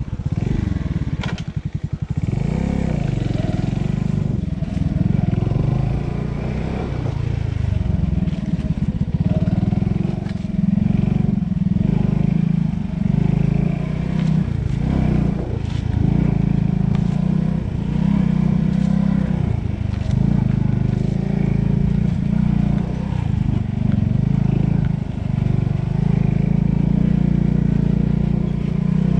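Small-displacement pit bike engine running under load as it is ridden over rough ground, its revs rising and falling again and again with the throttle. A few sharp knocks and clatter in the first second or two.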